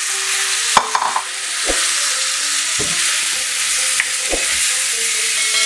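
Chopped pineapple sizzling in hot mustard oil in a non-stick wok, stirred with a wooden spatula that knocks against the pan a few times.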